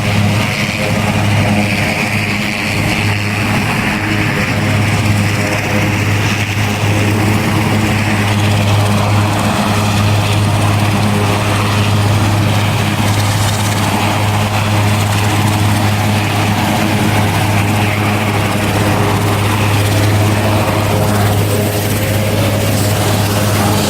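Propeller aircraft engine running steadily, a constant low hum with overtones that holds one pitch throughout.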